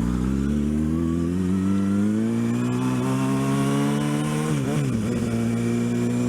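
Kawasaki ZX-6R inline-four sport bike engine pulling under acceleration, its note climbing steadily, then dropping sharply about four and a half seconds in at an upshift before running on steadily in the next gear.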